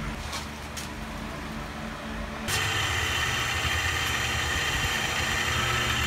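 A few light ticks over a low hum, then about two and a half seconds in a bench drill press starts up loud and runs steadily with a whine, its bit drilling into a steel flat bar.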